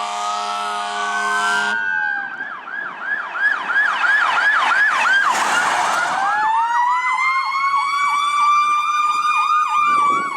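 Electronic sirens of a fire pumper and an ambulance passing on an emergency call. A steady air-horn blast over a slow wail cuts off about two seconds in. A fast yelp, about three sweeps a second, follows, and near the middle a second siren joins with a slow rising wail alongside the yelping.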